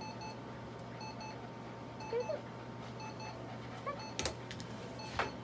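Light-therapy laser unit giving short repeated electronic beeps, over a steady low hum. Two sharp knocks or rustles come near the end.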